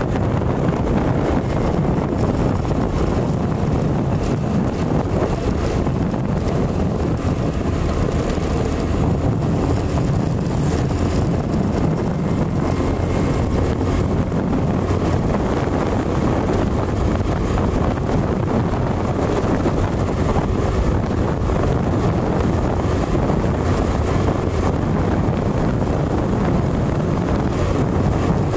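A small motorcycle riding steadily along an open road: wind rushing over the handlebar-mounted microphone, with the engine running at an even cruise underneath. There are no gear changes or sudden sounds.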